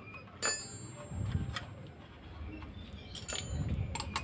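Metal tools and engine parts clinking against each other during motorcycle engine disassembly: a sharp ringing clink about half a second in, a few lighter clicks, then several more ringing clinks near the end.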